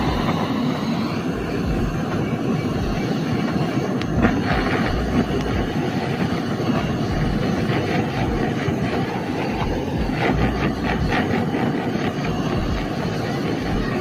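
Handheld gas blowtorch running with a steady, loud rushing hiss as its flame is played over a scooter carburetor.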